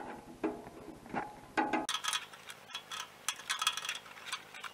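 Metal hand tools clinking and rattling as a wrench is fetched and handled: a few soft knocks in the first couple of seconds, then a dense run of sharp metallic clinks from about two seconds in.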